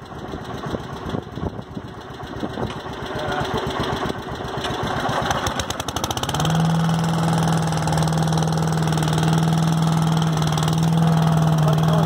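A Wheel Horse C181 garden tractor's single-cylinder engine idling, then about halfway through the homemade paddock vacuum's small petrol engine is pull-started and runs at a steady, louder hum with its blower.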